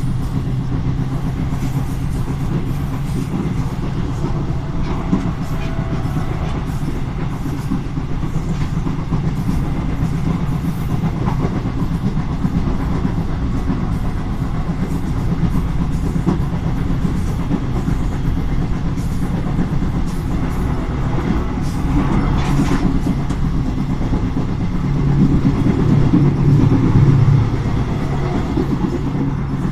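Train hauled by SNCFT locomotive 040-GT-566 running along the line: a steady rumble with the wheels clicking over the rail joints. It grows louder for a couple of seconds near the end.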